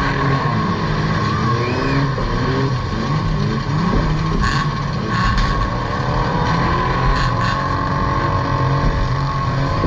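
Several pre-1975 banger racing cars' engines running and revving around a dirt oval. A few short sharp bangs come about halfway through.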